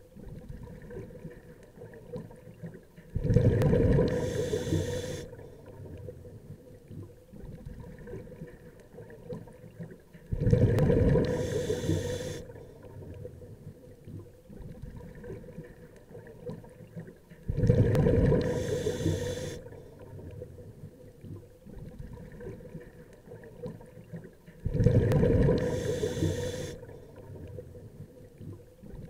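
A scuba diver breathing through a regulator underwater: four exhalations, each a burst of bubbles about two seconds long, coming about every seven seconds.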